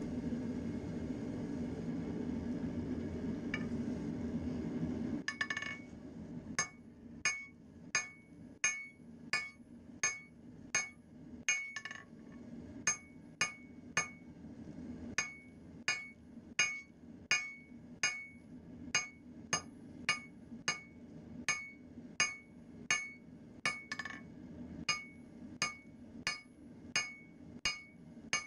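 A steady rushing noise from the forge for the first five seconds or so, then a hand hammer striking a red-hot railroad spike on a steel anvil, about three blows every two seconds, each with a bright metallic ring, with a brief pause near the middle.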